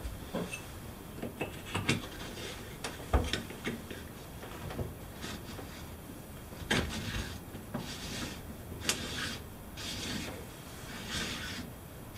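Metal shower arm with Teflon-taped threads being handled and screwed by hand into the wall fitting: scattered light clicks and taps, then a run of short hissing scrapes about once a second in the second half.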